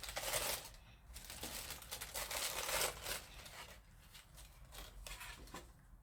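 Paper packaging crinkling and rustling as it is handled and pulled open, in irregular strokes: loudest at the start and again from about one and a half to three seconds in, then softer.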